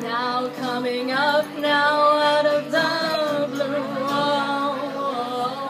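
A group singing a cappella: a lead voice sliding through a melody over held lower harmony notes.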